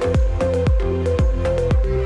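Electronic dance background music with a steady, deep kick-drum beat, about three hits a second, under a repeating synth line.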